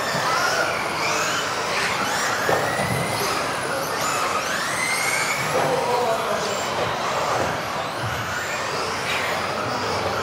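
Several electric RC off-road cars of the modified class racing together, their motors whining up and down in pitch as they accelerate and brake, over steady tyre and chassis noise echoing in a large hall.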